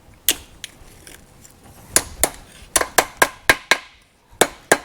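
Hand hammer striking steel on an anvil, hammering a bent end flush while forging a chain's hold-down pin. There is a single blow, a pause of more than a second, then quick ringing blows in short runs.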